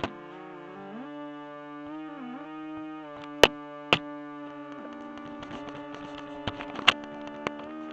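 Electronic drone music: layered sustained tones that hold and slide in pitch, cut by sharp clicks, two loud ones a half-second apart about halfway through and more near the end.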